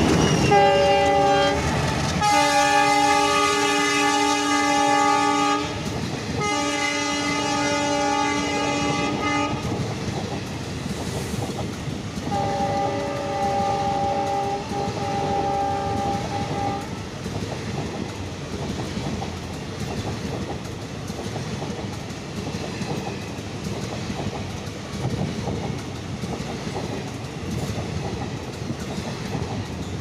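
Twin ALCO WDG3A diesel locomotives sound their horns as they pass: a short blast, then two long blasts of about three seconds each, then a fainter fourth. After that the NMG rake of motor car carrier wagons rolls past with steady wheel clatter.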